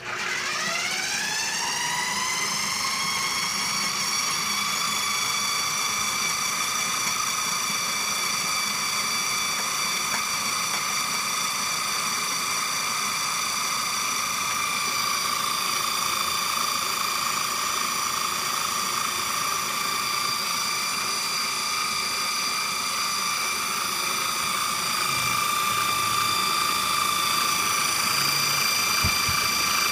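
Food processor motor starting up, its whine rising in pitch over the first couple of seconds and then running steadily as it purées leafy greens, frozen fruit and water into a smoothie.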